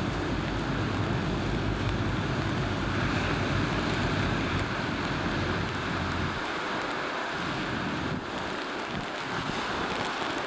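Wind buffeting the microphone over a steady rush of sea water; the low buffeting eases about six and a half seconds in.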